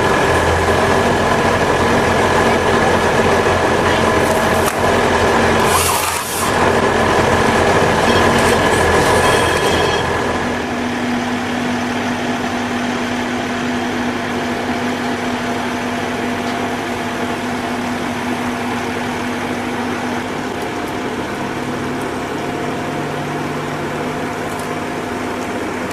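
Heavy machinery running steadily, an engine drone with several constant whining tones. About ten seconds in, the sound shifts and gets a little quieter, with less low rumble.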